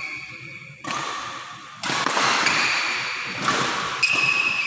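Badminton rally: several sharp racket hits on the shuttlecock, with shoes squeaking on the court floor.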